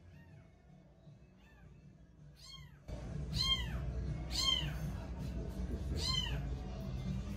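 Domestic cat meowing repeatedly, about six short rising-and-falling meows roughly a second apart, faint at first and louder after a couple of seconds. A loud low rumble comes in suddenly about three seconds in and carries on under the meows.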